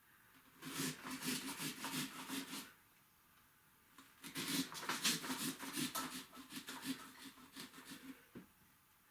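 Handheld jab saw with a 6-inch drywall blade sawing back and forth through a pumpkin's shell in quick strokes. Two runs of sawing, with a pause of about a second and a half between them.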